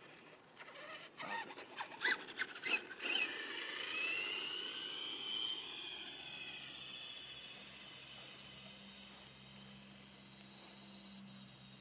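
Traxxas Rustler VXL RC truck's brushless motor and gears whining at full throttle, the pitch climbing as it accelerates, then sinking and fading as it speeds away. A few sharp crackles about one to three seconds in as it launches.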